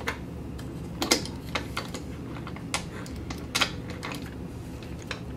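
Hornby OO gauge APT car rolling along model railway track: a low steady running hum with irregularly spaced light clicks and ticks.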